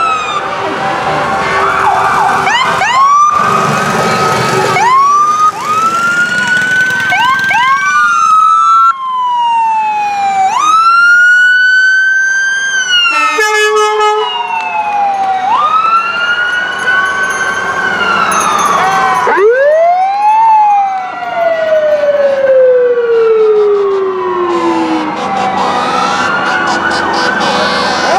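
Several fire engine and emergency-vehicle sirens wailing at once as the vehicles pass, the wails rising and falling out of step with each other. About twenty seconds in, one siren winds up quickly and then slowly falls in pitch over several seconds.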